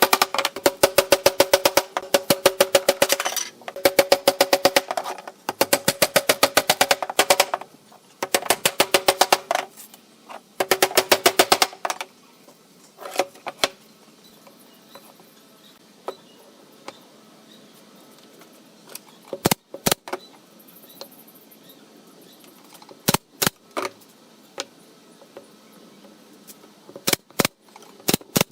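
A small power tool runs in five short bursts of a few seconds each, a rapid rattle of clicks over a steady hum. After the bursts come a few sharp clicks or knocks, mostly in pairs.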